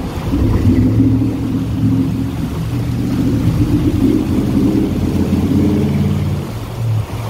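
A vehicle's engine running with a steady low rumble as it drives through shallow water, its tyres splashing and churning the water. The rumble eases a little near the end.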